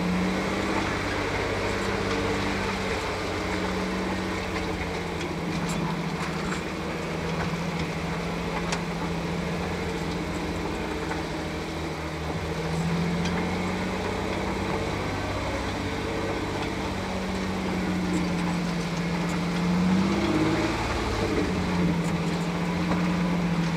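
An off-road vehicle's engine running at low speed as the vehicle crawls over a rough dirt trail. The engine note rises slightly about halfway through and again near the end.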